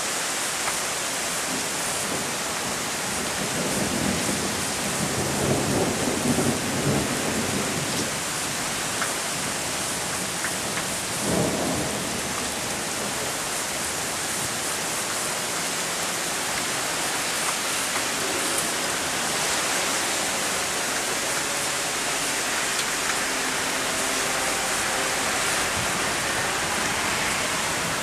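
Heavy rain pouring steadily during a thunderstorm. Thunder rumbles a few seconds in and again, more briefly, near the middle.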